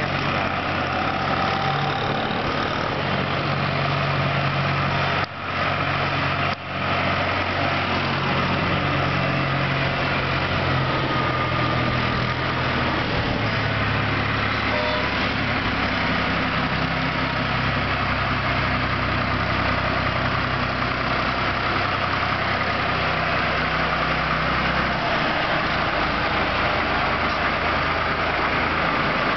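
Asphalt paver finisher's diesel engine running steadily, with mechanical clatter over the engine note. The sound cuts out briefly twice, about five and six and a half seconds in.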